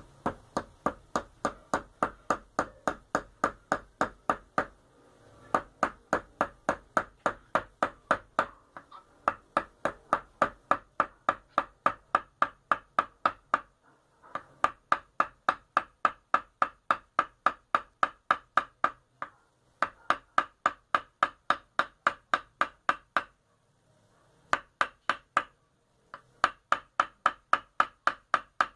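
Hammer driving nails into a cedar-wood wheel. Steady blows come about three a second, in runs of several seconds broken by short pauses, and each blow rings.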